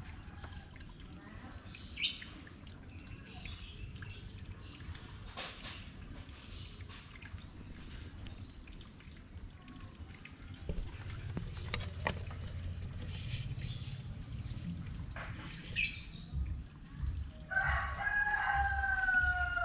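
A rooster crows once near the end, one long call falling slightly in pitch. Before it there is a low rumble with faint scattered ticks.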